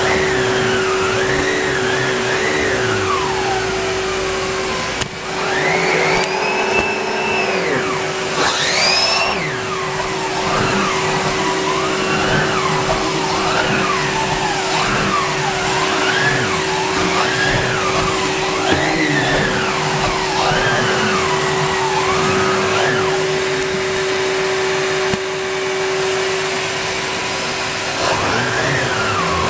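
A Numatic Henry cylinder vacuum cleaner running continuously with a steady motor whine. Over it a whistle of rushing air keeps rising and falling in pitch as the cleaning tool is worked.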